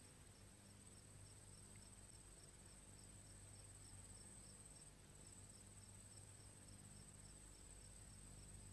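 Near silence: faint steady background hiss with a thin high whine and a low hum, typical of an old video-tape soundtrack.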